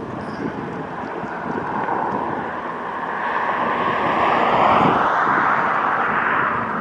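Ro-Ro cargo ship passing close at speed: a broad rushing from its machinery and bow wash that swells in the second half, with a hollow tone sweeping up and then down in pitch as the ship goes by. Wind buffets the microphone.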